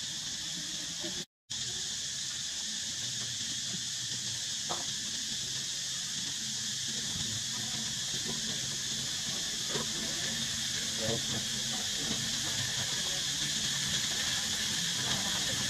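Steady high-pitched insect chorus, a continuous even buzz, cutting out briefly about a second in.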